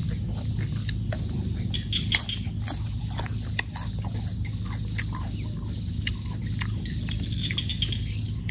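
Scattered crunches and clicks of someone eating and handling raw rice-field crab and tamarind pods with their fingers. Behind them run a steady low rumble and a high insect trill that pulses on and off about once a second.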